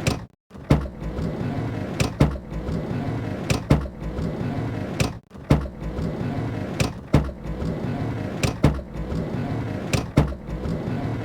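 Van sliding door being rolled open and slammed shut again and again: a rumbling slide along its track broken by sharp metallic clunks as it latches or hits its stop, with two brief gaps.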